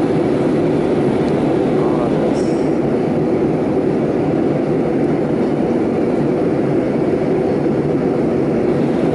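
Steady, loud rumble of an airliner's engines and airflow heard inside the passenger cabin, as the plane takes off or climbs.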